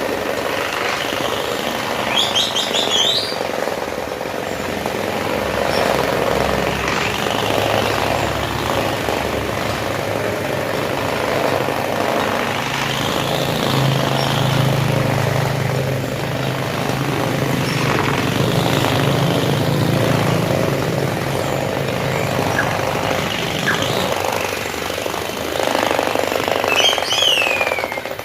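A machine running steadily to knock the dust out of a carpet, with a low motor hum that swells about a quarter of the way in and fades before the end. A bird chirps briefly near the start and again near the end.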